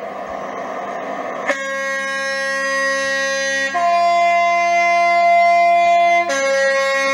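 Added sound of a Class 43 HST power car's two-tone horn giving a long blast over its running diesel engine. It starts about a second and a half in on the low note, steps up to the higher note, then drops back to the low note near the end.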